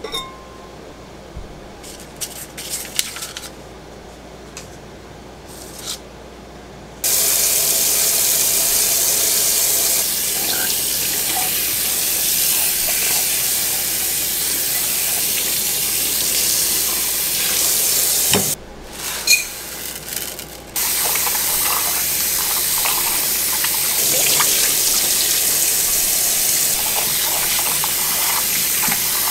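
Kitchen tap running into a ceramic clay pot in a stainless steel sink as the pot is rinsed and then rice is washed in it. A few light knocks and clinks of the ceramic pot being handled come first, the water comes on about a quarter of the way in, stops briefly about two-thirds through, then runs again.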